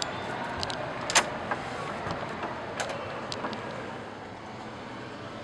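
Hotel room door's lever handle and latch clicking as the door is opened, with a sharp click about a second in and a few lighter clicks after, over a steady background noise.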